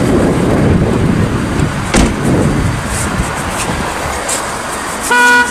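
Road traffic noise with a low rumble, a sharp knock about two seconds in, and a short steady beep near the end.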